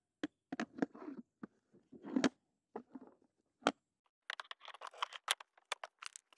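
Handling clicks and knocks of a plastic toy wheel and metal axle rod as the rear wheel of a ride-on toy motorbike is fitted. A few scattered knocks give way about four seconds in to a quick run of clicks and rattles.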